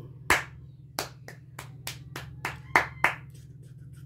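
Bare hands clapping, about nine claps at an uneven pace, the first and the two near the end loudest.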